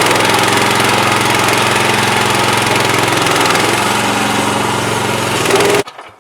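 Gas engine of a portable bandsaw sawmill running steadily and loudly, then cutting off suddenly near the end.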